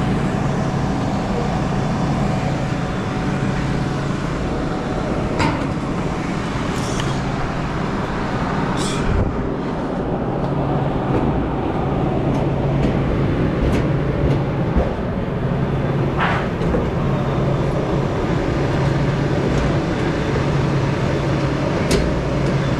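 Steady mechanical hum and rumble, with a few brief clicks and knocks.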